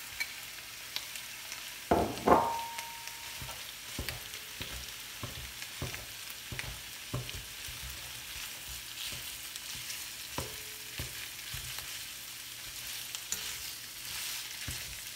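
Minced beef and diced onion sizzling in a hot nonstick wok while a spatula breaks up and stirs the meat, tapping the pan about twice a second. About two seconds in, two louder knocks, one leaving a short ring.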